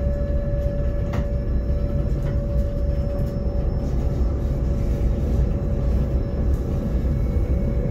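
Cab interior of an SBB RBDe 560 Domino electric multiple unit running along the line: a steady low rumble with a constant whine, and a faint click about a second in.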